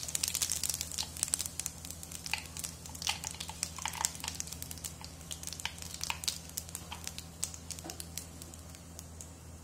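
Whole seeds sizzling and popping in hot oil in a kadai as they are tempered, the pops dense at first and thinning out over the next few seconds.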